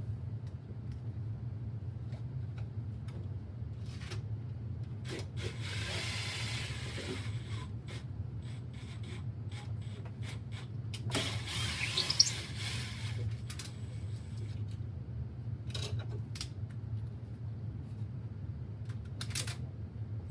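Scraping and rubbing of hands working on plumbing fittings, with scattered clicks and knocks and two longer scraping passes, one of them ending in a sharp knock, over a steady low hum.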